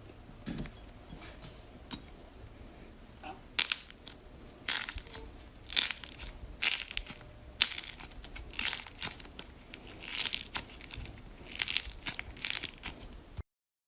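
Slime being squeezed and pressed by hand, making short crackling bursts about once a second after a quieter start. The sound cuts off suddenly near the end.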